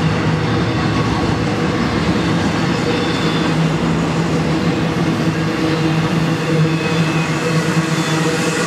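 Double-stack intermodal freight train's well cars rolling past, a steady noise of steel wheels on rail with a low steady hum underneath.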